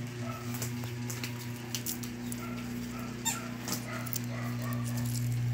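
Small fluffy dog making short, soft whiny sounds while playing with a toy ball, with light clicks and taps scattered through, over a steady low hum.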